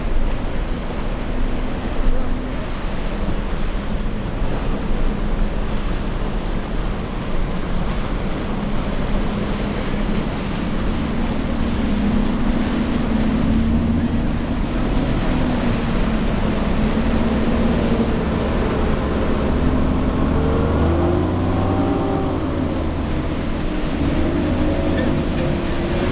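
Choppy surf and wind with motorboat engines running, an engine note rising and falling in pitch in the second half.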